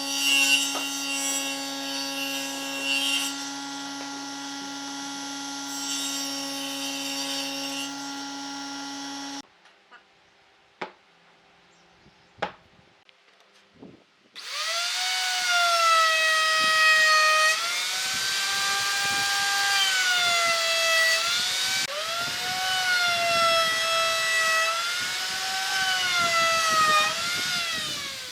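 Power tools working wood. A steady machine hum with hissy cutting noise stops about a third of the way in; after a few seconds of near silence with a few clicks, an electric tool starts whining, its pitch dipping and recovering again and again as it bites into the wood.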